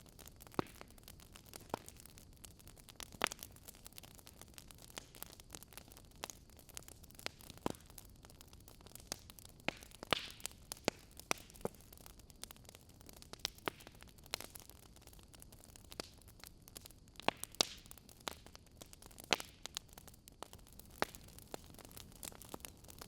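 Wood fire crackling: irregular sharp pops and snaps over a soft, steady hiss.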